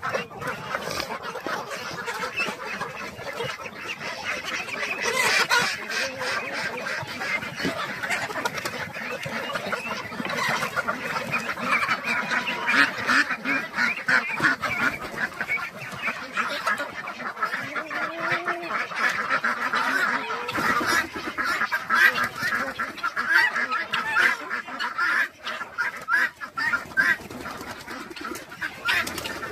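A backyard poultry flock calling without a break, many birds' short calls overlapping in a dense chatter.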